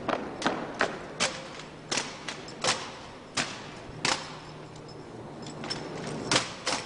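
Armed drill platoon working their rifles: a series of sharp slaps and knocks from hands striking rifles, rifle butts and heels hitting the pavement. They come about two or three a second at first, then more sparsely, with a pause of about two seconds before two last loud cracks near the end.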